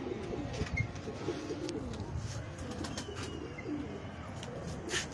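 Domestic pigeons cooing, with a couple of sharp clicks near the end.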